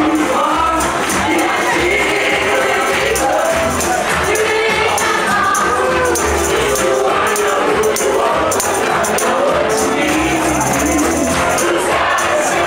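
Upbeat song with group vocals over a steady beat, a tambourine jingling through it.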